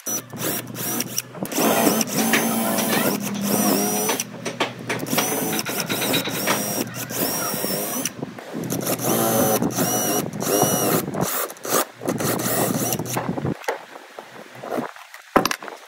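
Cordless drill with a twist bit boring through a thin sheet into pine, the motor running with a wavering pitch as the bit cuts, then stopping about three-quarters of the way through.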